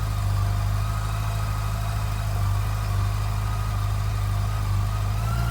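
Yamaha FJR1300's inline four-cylinder engine idling steadily through its standard factory exhaust silencers.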